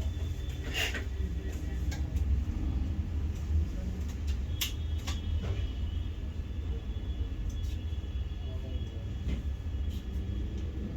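A steady low hum with a few sharp clicks of small tools on a repair bench, about a second in and again around the middle.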